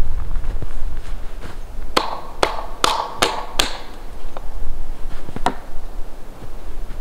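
Wooden knocks as the poles of an A-frame shelter are worked together at the top joint: five sharp knocks in quick succession, then one more a couple of seconds later.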